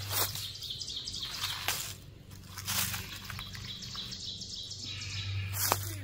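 Dry leaf litter and a plastic tent tarp crunching and rustling in short bursts as they are handled, with faint high chirping behind.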